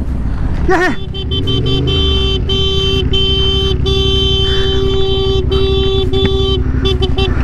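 A vehicle horn sounding in long, steady blasts broken by short gaps, then a few shorter toots near the end, over the low running of a Yamaha Ténéré 700's parallel-twin engine.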